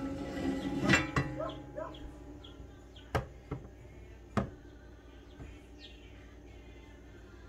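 A few sharp metal clanks and knocks as the meat grinder's head is taken apart to change to the finer plate. Faint bird chirps sound in between.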